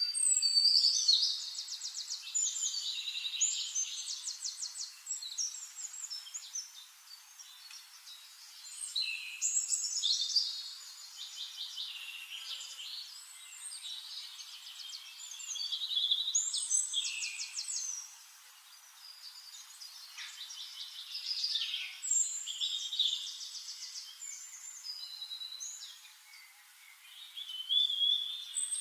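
Songbirds singing: phrases of rapid trills and whistled notes, with a new phrase every few seconds.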